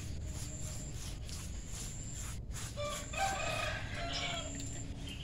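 A rooster crows once, about three seconds in, a single call lasting about a second and a half.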